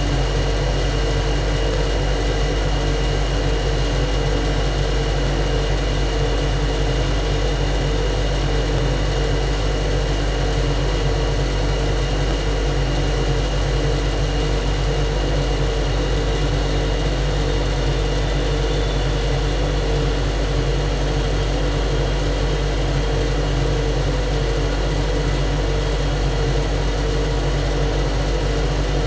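Ship's engine-room machinery running: a loud, unchanging low drone and din with a thin steady whine above it.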